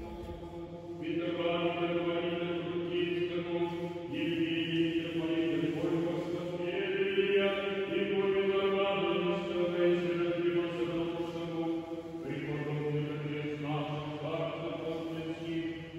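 Orthodox church chanting during a service, sung in long held notes that shift pitch every few seconds, echoing slightly in the church.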